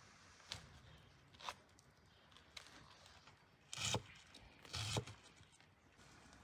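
Knife cutting through a cabbage on a wooden cutting board: a couple of light taps, then two louder cuts about four and five seconds in.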